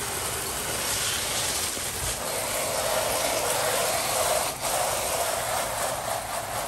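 Soft-wash spray from a 12-volt pump system hissing steadily from the nozzle onto vinyl siding, with a brief break about four and a half seconds in.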